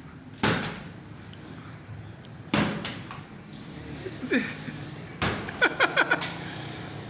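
Plastic water bottle being flipped and thudding down on a wooden counter: three loud knocks about two seconds apart, then a quick run of short clicks near the end.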